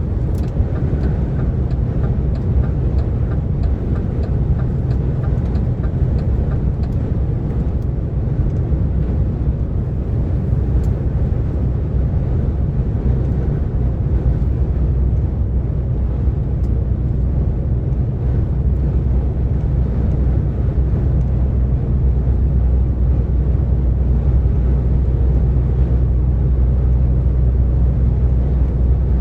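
DAF XF 460 truck's PACCAR MX-13 straight-six diesel running steadily at motorway cruising speed, a low drone with road noise over it, growing slightly louder in the last third.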